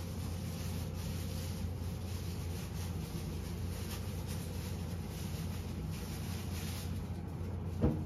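Room tone: a steady low hum with faint soft rubbing sounds, and one short knock near the end.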